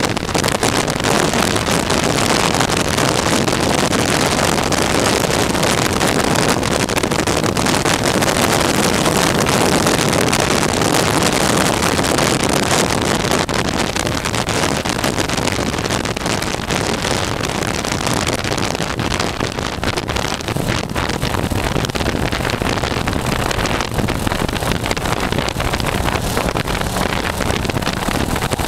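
Wind rushing over the microphone of a motorcycle at road speed, a steady dense hiss, with the bike's engine droning beneath it.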